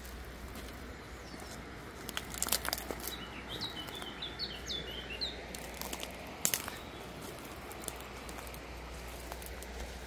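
Footsteps crunching through dry twigs and leaf litter on a forest path, with sharp crackles about two to three seconds in and again past six seconds. A small bird gives a quick run of short, high chirps in between.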